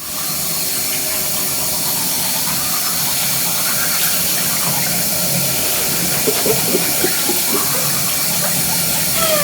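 Water running steadily from a tap into a bathtub, a constant rush.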